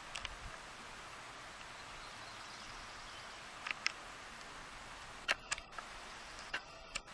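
Faint steady outdoor hiss with a scatter of small sharp clicks from a handheld camera being handled, a couple near the start and about halfway, then two quick clusters near the end.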